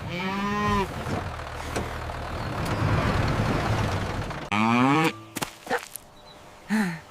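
A cow mooing twice, at the start and again about four and a half seconds in, over a tractor engine running steadily. The engine noise drops away at the second moo, and a few short clicks follow.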